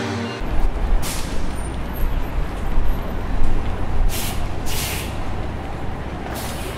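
Heavy road traffic with a steady low rumble, and four short air-brake hisses from heavy vehicles cutting through it.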